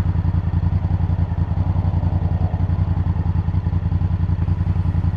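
Honda Africa Twin CRF1000L's parallel-twin engine running steadily, an even, rapid pulsing throb.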